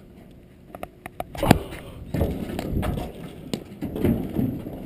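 Platform tennis rally: sharp knocks of paddles striking the ball, the loudest about a second and a half in, with a few fainter knocks around it.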